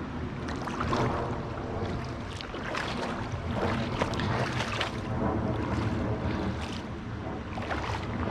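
Creek water rushing and splashing, with wind rumbling on the microphone and scattered short splashes and clicks.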